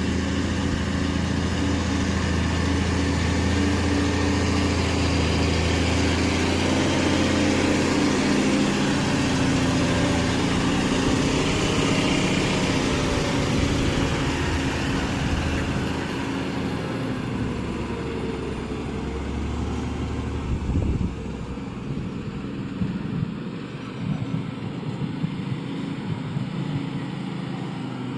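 Heavy diesel truck engine running steadily with a deep drone, fading away from about halfway through, followed by scattered knocks and rattles.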